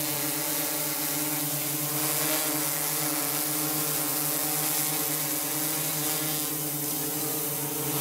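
DJI Inspire quadcopter hovering: a steady hum from its four motors and propellers, several tones at once over a loud rushing hiss of the blades.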